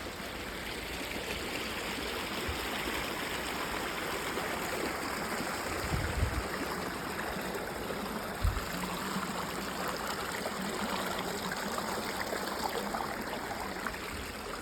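Flowing river water, a steady rushing wash, with a few brief low bumps about six and eight seconds in.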